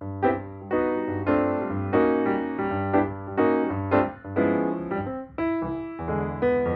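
Background music led by piano, with notes struck one after another over a sustained low bass line.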